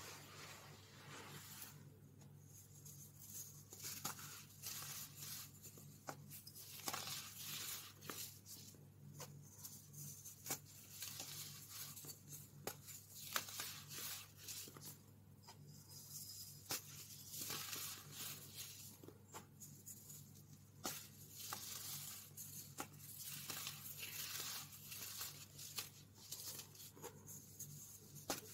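Blocks of dried baking soda crushed and crumbled between the fingers and pressed into loose baking soda powder: soft crunchy crackles in irregular bursts with sharp little snaps, over a low steady hum.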